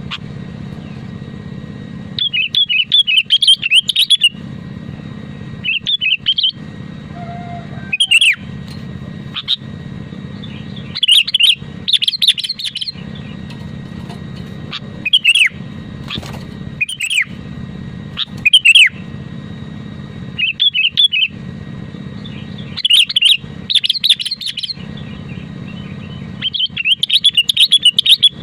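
Sooty-headed bulbul (kutilang) singing in short bursts of quick chirping notes, one phrase every one to three seconds, over a steady low hum.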